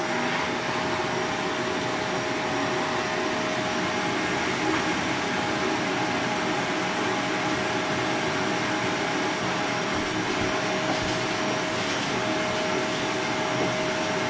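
Household vacuum cleaner (hoover) running steadily: an even rush of air with a constant tone held throughout.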